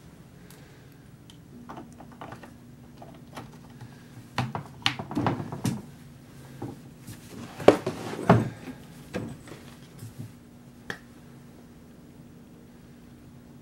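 Scattered clicks, knocks and clatter of a Stihl chainsaw's plastic covers and parts being handled and taken off during servicing, busiest and loudest from about four to eight seconds in.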